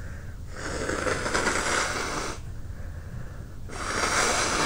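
A person blowing their nose twice, clearing a nose left running by a bout of sneezing: a long blow of about two seconds, then a second, louder one near the end.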